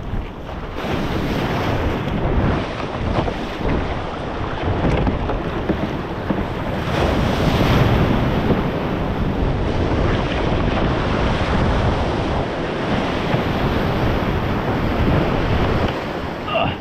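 Surf breaking around and over a fishing kayak as it is launched out through the waves, with water rushing and splashing over the bow and wind buffeting the microphone. The loudest crash comes about halfway through.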